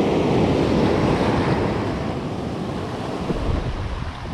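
Sea waves breaking and washing in foam over a pebble shore, with wind on the microphone. The rush of water is loudest at the start and slowly dies down.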